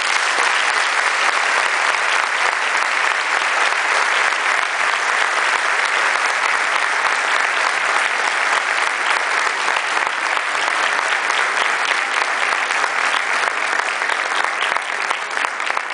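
An audience applauding steadily, a dense clapping that thins out into scattered claps near the end.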